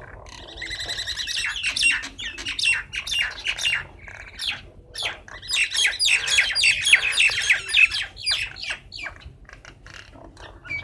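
Several birds squabbling, trading rapid overlapping squawks and chirps, with two busy flurries and thinner calling between and near the end.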